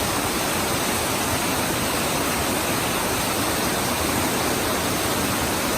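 Waterfall's falling water, a steady, even rush of white noise heard from right on top of the falls.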